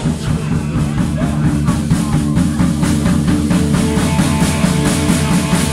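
Live rock band playing: electric guitar, bass guitar and drum kit with a fast, steady beat.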